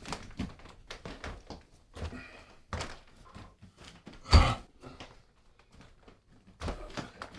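A person stumbling, with one heavy thud about four seconds in and faint rustling and small knocks of movement around it.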